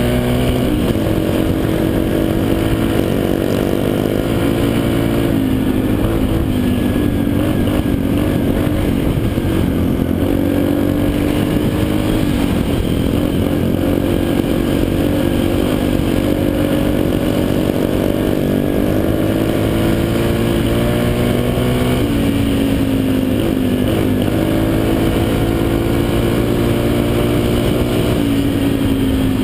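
Dirt bike engine running under way, its revs climbing and dropping back several times as the rider works the throttle, heard from the rider's helmet camera.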